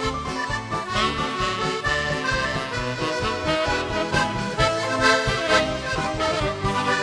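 Accordion playing a paso doble: a sustained melody over a steady, evenly pulsed bass beat.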